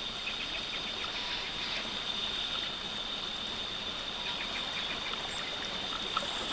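A small river running: a steady rush of flowing water, with a thin continuous high whine and short runs of faint high chirps over it.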